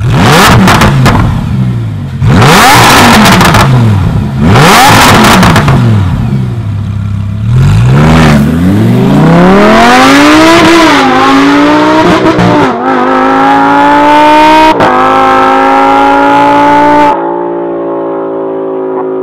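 Lamborghini Huracán LP610-4's 5.2-litre V10 through an iPE aftermarket exhaust, very loud. It fires up and is revved hard several times, then accelerates hard, the pitch climbing steadily with a short drop at each of about three upshifts. About seventeen seconds in it gives way to a steadier, duller engine note at constant speed.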